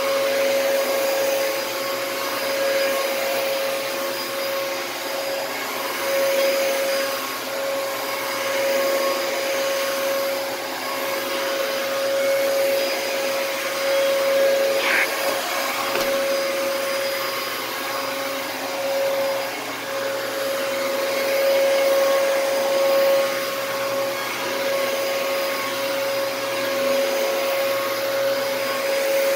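Dyson DC33 upright vacuum cleaner running on carpet with its brush bar driven through a newly fitted clutch. It makes a steady high whine over a rushing hiss, the level swelling and easing slightly as it is pushed back and forth. There is a brief chirp and click about fifteen seconds in.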